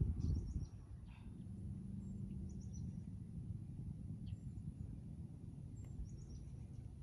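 Outdoor golf-course ambience: a low rumble of wind on the microphone, strongest at the start, with a faint steady low drone and short, high bird chirps scattered throughout. About six seconds in there is a single light click as a putter strikes a golf ball.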